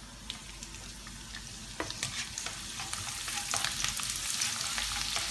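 Minced garlic sizzling in hot oil in a wok, the sizzle growing louder from about two seconds in, with the clicks and scrapes of a spatula stirring it against the pan.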